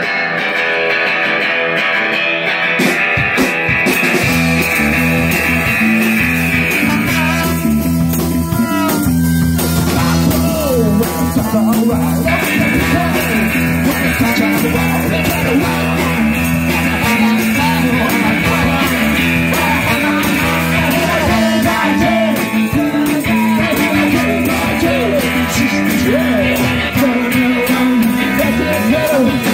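Live rock-and-roll band playing: electric guitar, electric bass with a repeating bass line, drums and a trombone, with a singer.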